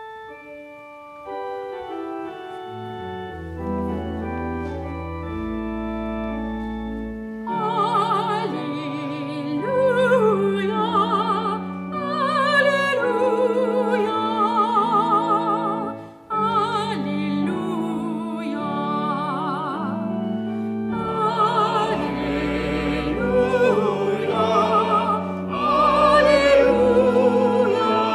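An organ plays sustained chords over a deep bass. About seven seconds in, a small vocal ensemble joins, singing with strong vibrato over the organ. This is the sung Gospel acclamation of a Catholic Mass.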